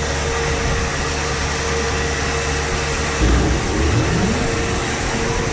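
Grain-handling machinery running steadily with a constant hum. About three seconds in, a motor or engine speeds up, its pitch rising over about a second.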